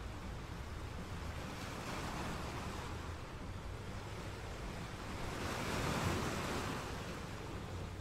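Ocean surf washing against the shore, one wave surging up to a peak about six seconds in and then subsiding, with wind rumbling on the microphone.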